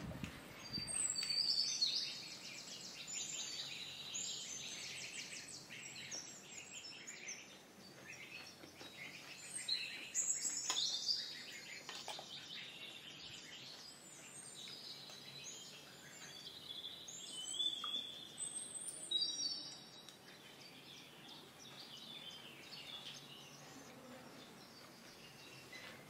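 Small songbirds chirping and twittering in bursts of quick, high sliding notes over a faint steady background hiss. The birdsong is loudest around two seconds in, again around ten to eleven seconds, and around eighteen to nineteen seconds, then fades to occasional chirps.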